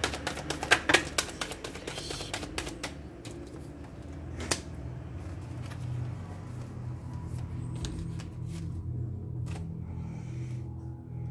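A deck of cards being shuffled by hand: a quick run of cards clicking and riffling in the first three seconds, then slower, scattered flicks as the cards are handled.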